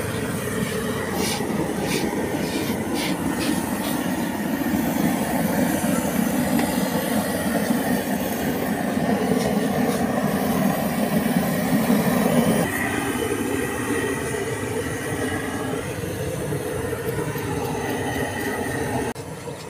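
Gas torch burning with a steady rushing noise as it singes a slaughtered pig's hide, louder for a stretch in the middle and dropping a step about two-thirds of the way through and again just before the end. A few short scraping strokes sound about one to three seconds in.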